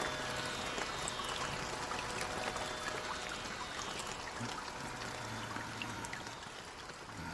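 Steady hiss of rain with scattered light drips. Faint background music tones fade out in the first few seconds.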